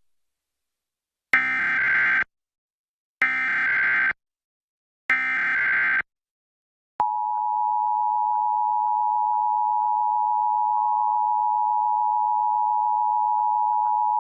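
Emergency Alert System tones on a radio broadcast: three short bursts of SAME header data, about two seconds apart. About seven seconds in, the steady two-tone EAS attention signal starts and holds, announcing the test message.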